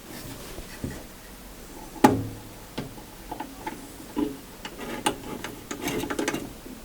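Handling noise at the workbench: one sharp knock about two seconds in, then a run of small clicks, taps and rubbing that grows busier in the second half, with no saw running.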